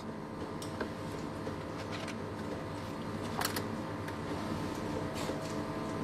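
Steady low background hum with a few faint, scattered clicks and taps.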